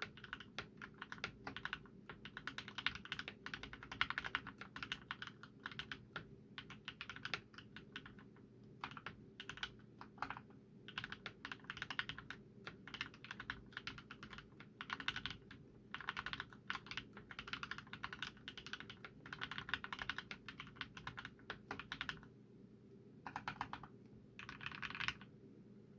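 Typing on a Cox Monarch mechanical keyboard with fully lubed Gateron Black linear switches and PBT keycaps. Keystrokes come in quick runs of a second or two, with brief pauses between them.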